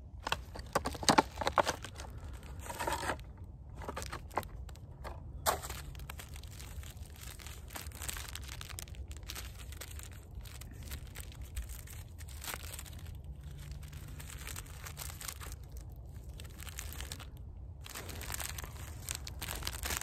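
Clear plastic packaging crinkling and rustling as it is handled and opened, loudest in the first couple of seconds with further sharp crackles about three and five and a half seconds in, quieter rustling after, and another louder stretch near the end. A steady low rumble lies underneath.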